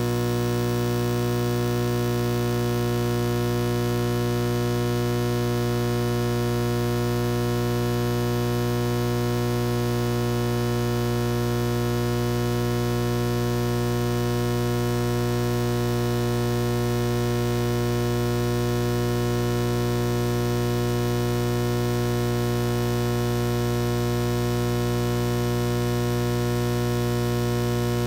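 Loud, steady electrical mains hum: a low buzz with a stack of unchanging tones above it, never varying.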